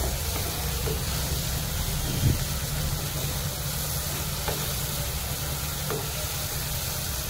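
Onion and tomato masala frying with a steady sizzle in a non-stick pan while a spatula stirs it, with a few soft scrapes of the spatula on the pan.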